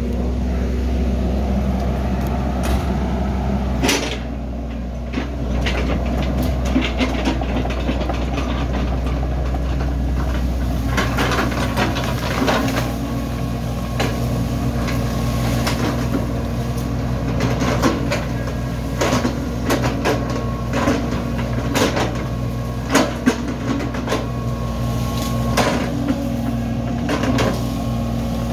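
Hydraulic excavator's diesel engine running steadily, with many short knocks and clatters throughout, more of them in the second half.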